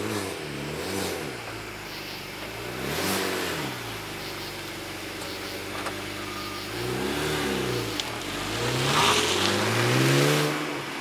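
BMW 335's turbocharged straight-six breathing through a Dinan free-flow exhaust, its revs rising and falling several times as the car is driven past and pulls away. The longest and loudest rev rise comes near the end.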